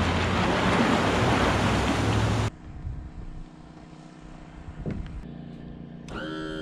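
Pickup truck pulling the boat trailer up the ramp out of the lake, its engine running under loud churning water, cutting off abruptly. A quieter stretch follows, with a single knock. Just before the end a Mercury outboard motor starts up.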